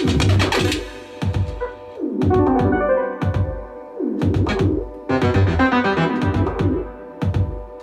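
Electronic beat: a deep kick that drops in pitch about every two seconds, a ticking hi-hat pattern, and keyboard or synth chords over it.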